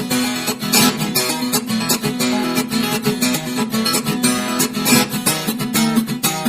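Background music: acoustic guitar played fast, strummed and plucked, with dense rapid notes.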